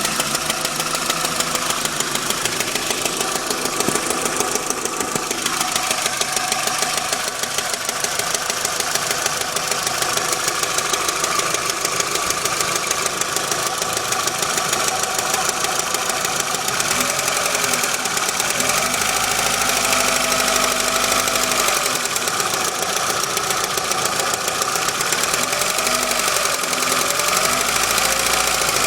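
Volkswagen Jetta Mk4 2.0-litre inline-four engine running steadily with a fast, even ticking, which the owner suspects is lifter noise.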